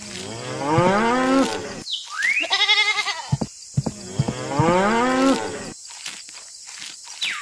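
Cow mooing: two long moos, each rising in pitch, with a short wavering bleat between them.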